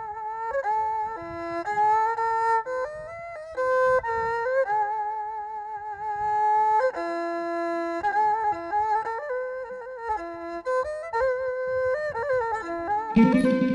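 Traditional Khmer wedding music (pleng kar): a tro, the two-string bowed fiddle, plays a melody alone, with notes that step and slide. Near the end a khim hammered dulcimer comes in underneath with lower notes.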